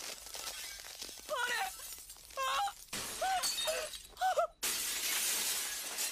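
Crystal shattering, an anime sound effect: a sudden loud glassy burst about four and a half seconds in, after a run of short pitched sounds that rise and fall.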